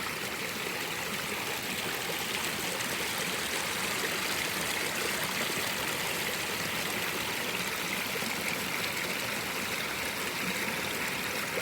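A clear river flowing over stones: a steady rush of running water, bright and hissy, with some trickling.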